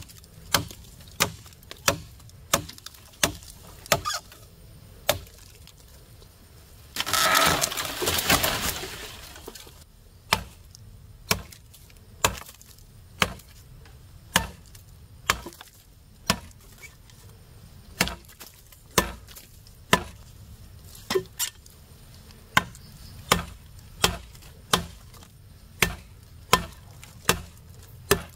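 Repeated chopping blows on wood, about one a second, each a sharp crack. About seven seconds in comes a louder, noisy cracking that lasts about two seconds, like wood splitting or breaking.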